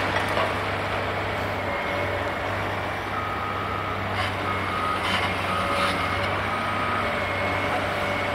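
Heavy diesel engine of a large demolition excavator running steadily, with a machine's backup alarm beeping repeatedly from about three seconds in. A few sharp knocks sound near the middle.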